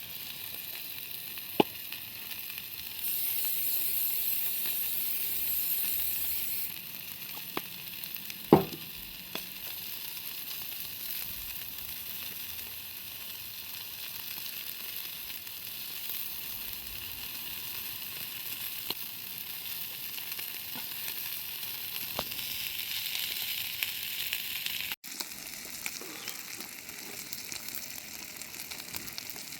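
Food frying in a pan, with a steady sizzle and scattered sharp pops. A brief falling tone about a third of the way through is the loudest sound, and the sizzle cuts off for an instant near the end.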